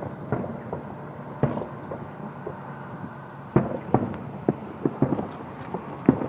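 Fireworks bursting overhead: a string of irregular sharp bangs, coming closer together in the second half.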